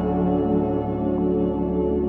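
Background music: slow ambient music with long held tones.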